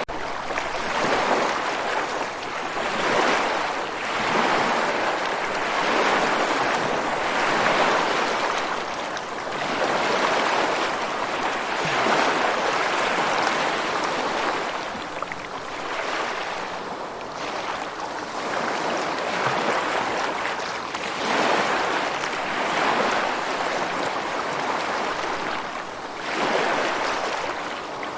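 Ocean waves washing onto a shore, a continuous rushing hiss that swells and falls back every few seconds as each wave breaks and recedes.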